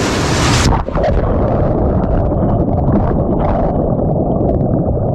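Canoe plunging through whitewater: a loud rush of breaking waves and splashing. About a second in, the sound suddenly turns muffled and dull as water washes over the camera, leaving a low churning rumble with scattered knocks.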